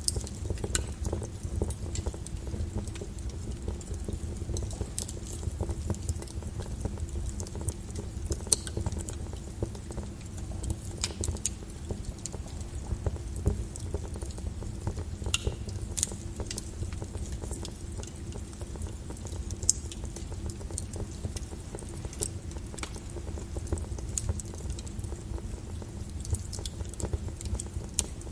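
Wood fire crackling, with irregular sharp pops and snaps, over a steady hiss of rain against a window and a low rumble.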